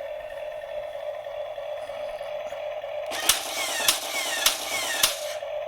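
Toy remote-control water-bomb car's cannon firing balls: four sharp shots about 0.6 s apart, starting about three seconds in, each with a short falling electronic tone over a rushing noise. A steady hum from the car runs underneath.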